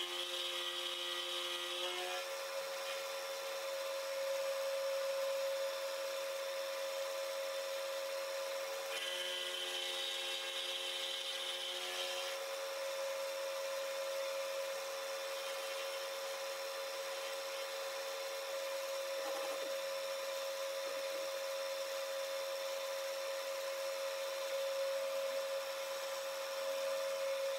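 Vertical milling machine running a carbide end mill to cut a slot in a metal block: a steady whine throughout. A higher-pitched sound joins it for about two seconds near the start and again for about three seconds around ten seconds in.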